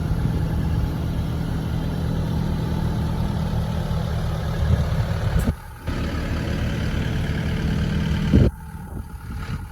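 Takeuchi TB290 excavator's diesel engine running steadily at a low, even pitch. The sound cuts out abruptly for a moment a little past halfway, then drops sharply to a much quieter level near the end.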